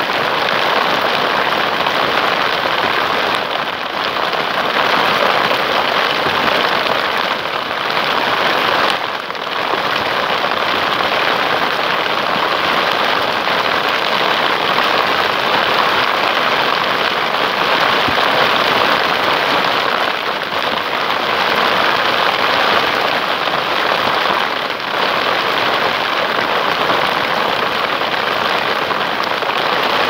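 Heavy rain falling steadily.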